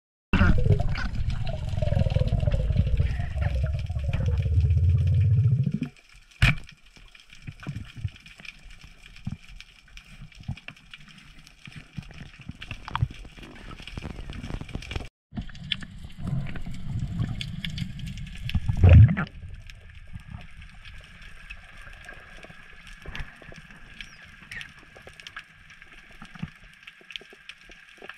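Underwater sound through a diving camera's housing: low rushing, gurgling water noise in two stretches, with scattered sharp clicks and one loud thump near the end of the second stretch. The rest is a faint steady hiss.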